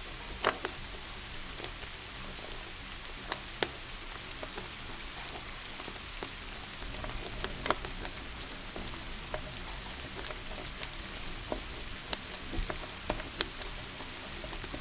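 Steady hiss of rain falling, broken by irregular sharp pops and crackles from a burning wood fire in a fireplace.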